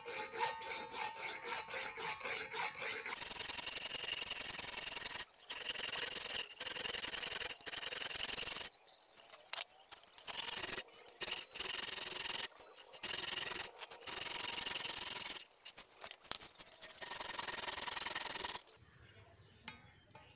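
Steel round file rasping back and forth inside a drilled hole in a welded steel block, opening up the hole. At first the strokes come quickly, about three a second. After that the rasping runs almost without a break, with several short sudden gaps, and it falls quiet near the end.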